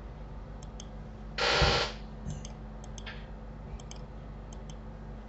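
Scattered light clicks of a computer keyboard and mouse over a steady low hum. About one and a half seconds in comes a short, loud burst of hiss lasting about half a second.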